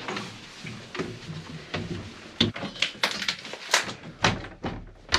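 A quick, irregular run of sharp knocks and thuds, about three a second, starting about halfway in.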